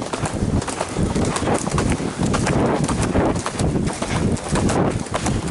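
Grey horse galloping on a dirt track, its rapid, continuous hoofbeats heard from the saddle.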